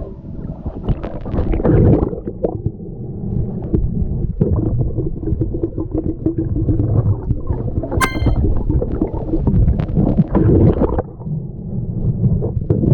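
Muffled underwater water noise picked up by a GoPro in its housing during a snorkel dive: a steady low rumble and gurgling with scattered small knocks, and one sharp ringing click about eight seconds in.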